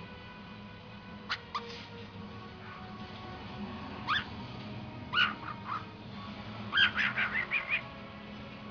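Cockatiel giving short, sharp bark-like calls in imitation of dogs: a few scattered single calls, then a quick run of about six. Faint music plays underneath.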